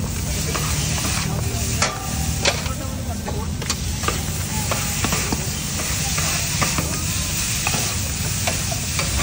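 Metal spatula scraping and clinking on a hot iron tawa griddle as fried chicken is scooped up, with irregular sharp clacks over a steady sizzle.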